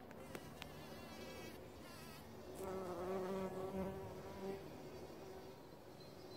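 Bees buzzing around the blooms of a small pink climbing rose. The buzz grows louder about two and a half seconds in, then eases off again.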